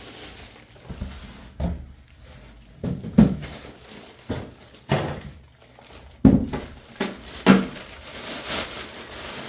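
Cardboard box and foam packaging being handled as a heavy boxed subwoofer is lifted out, giving a series of sharp thumps and knocks. The plastic bag around the speaker crinkles near the end.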